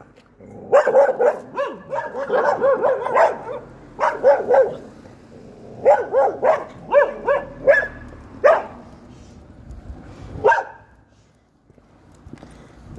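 Guard dogs barking from behind a gate in quick volleys: several bursts of rapid barks with short pauses, then a few single barks that end about ten and a half seconds in.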